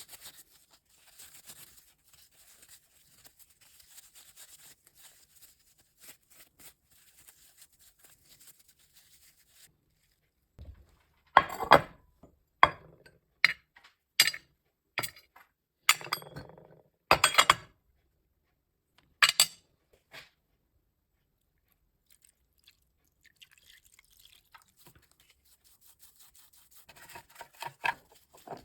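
Hand-drill metal parts being worked on by hand: faint scratchy rubbing at first, then a run of sharp clinks and knocks, a pause, and more rubbing and clicks near the end.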